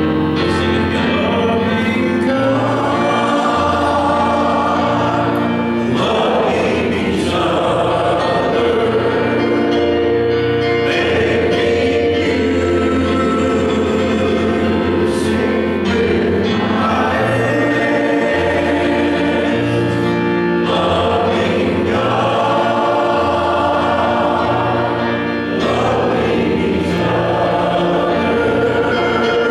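Gospel choir of men and women singing together in harmony, with instrumental accompaniment and a bass line that moves to a new note every couple of seconds.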